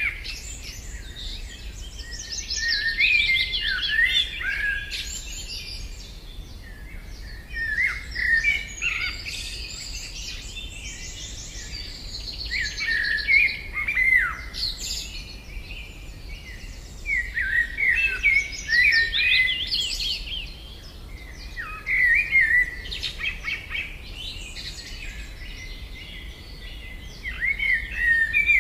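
Songs of three small songbirds played one after another: willow warbler, then whinchat, then woodchat shrike. Each is a run of short whistled phrases with quick glides and trills, coming in bouts with brief pauses between them.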